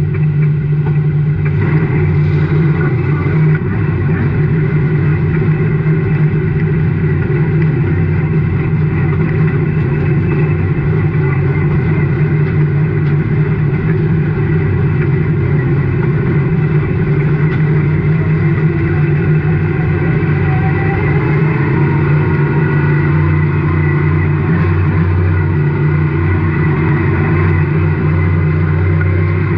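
Stock car racing engine heard from inside the cockpit, running loud and steady at racing speed, with only slight rises and dips in pitch.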